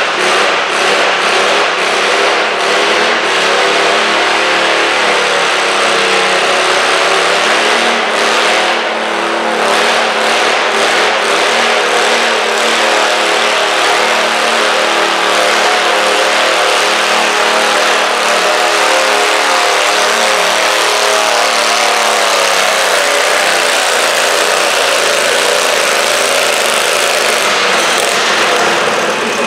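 Garden pulling tractor's engine running at high revs under heavy load as it drags a weight-transfer sled down a dirt track. The pitch wavers in the first few seconds, then holds high and steady.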